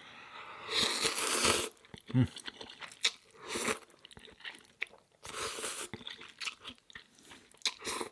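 A person eating ramen noodles close to the microphone: a long slurp about a second in, then several shorter slurps and bites with chewing and small mouth clicks between them.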